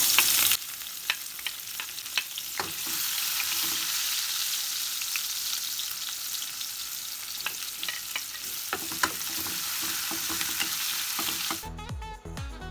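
Chopped garlic and onion frying in hot oil: a loud sizzle that drops off about half a second in, then steady sizzling with scattered clicks of a utensil stirring in the pan. Near the end it cuts to background music.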